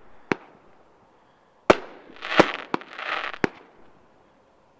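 Aerial firework shells bursting overhead. A sharp bang comes just after the start, then, under two seconds in, a run of four more over about two seconds, the first two the loudest, with a hissing spread of sound between them.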